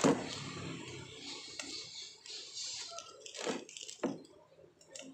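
Handling noise from a steel square tube on a workbench: a sharp knock at the start, then a few fainter taps and two more knocks about three and a half and four seconds in.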